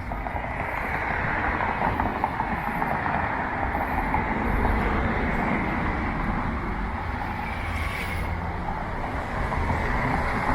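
City street traffic passing, a steady rumble.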